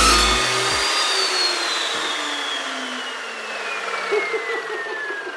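Evolution S355CPSL 14-inch carbide-tipped metal-cutting chop saw coming off the end of a cut through steel box tubing, then the motor switched off and the blade spinning down: a whine that falls steadily in pitch for several seconds.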